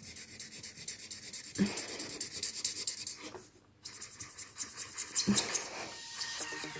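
Felt-tip marker scratching over squared paper in quick short strokes, colouring in squares, with a brief pause a little past halfway and a couple of light knocks.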